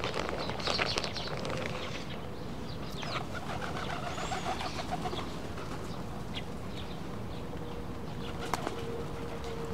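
Feral pigeons jostling over scattered rice: a flutter of wings in the first second, low cooing a few seconds in, and a few sharp clicks.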